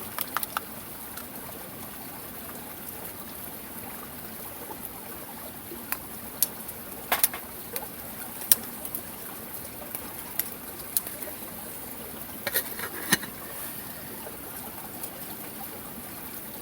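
Steady hiss of a pot of rice porridge (ojiya) cooking, with a handful of sharp clicks about six to eight seconds in and again around twelve to thirteen seconds in.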